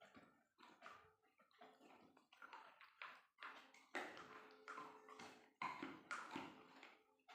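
Treats being chewed, a quick uneven run of short crunches and taps that grows a little louder from about four seconds in.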